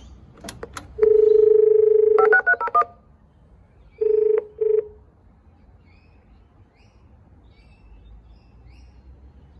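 Station help point intercom being used for a timetable enquiry: two clicks, then a long steady beep, a quick run of telephone dialing tones as it calls out, and two short beeps.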